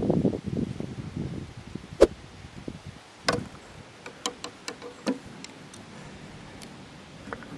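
A whitetail buck's steps crunching in dry leaf litter during the first second or so. Then a single sharp click about two seconds in, and a quick run of lighter clicks and ticks a second later.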